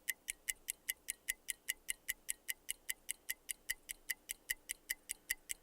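A mechanical watch ticking steadily and evenly, about five crisp ticks a second.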